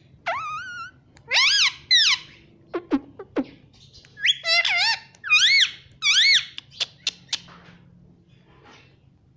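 Ringneck parrot giving a string of about six loud, high-pitched whistled calls, each rising then falling, with a few short sharp clicks between them.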